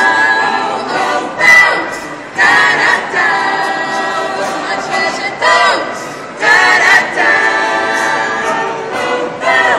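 Mixed-voice a cappella group singing held chords in short phrases, with fresh entries every few seconds, recorded on a phone.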